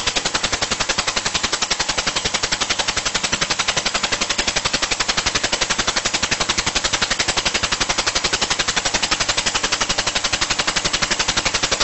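Small model steam engine running on compressed air from an air blow gun, its exhaust puffing in a rapid, even stream of pulses.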